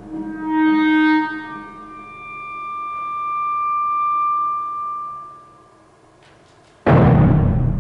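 Clarinet plays a short note, then a long held high note that swells and fades away to near silence. Near the end the percussion comes in with a sudden loud stroke.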